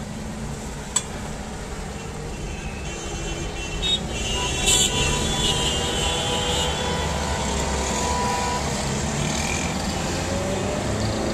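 Road traffic heard from inside a moving car: a steady engine and road rumble with passing vehicles, growing a little louder about four seconds in. A short sharp click about a second in.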